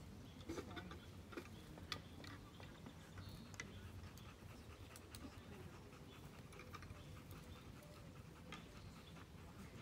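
Bernese Mountain Dog panting faintly, with small scattered clicks, the clearest about half a second, two seconds and three and a half seconds in, as its harness is fastened to the shafts of a wooden cart.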